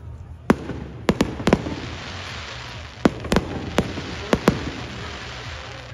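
Fireworks display: aerial shells bursting overhead with about nine sharp bangs at irregular intervals, several in quick pairs, and a crackling hiss between them from glittering, crackling stars.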